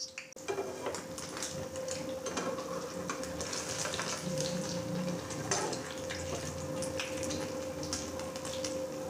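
An egg-soaked bread slice frying in shallow oil in an aluminium pan, with a steady sizzle and crackle. The slice is turned with a metal slotted spoon that clinks against the pan.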